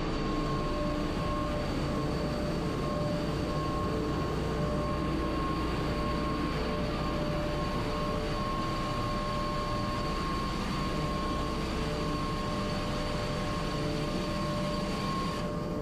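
Steady machinery noise in a tanker ship's engine room: an even, unbroken drone with several constant whining tones over it.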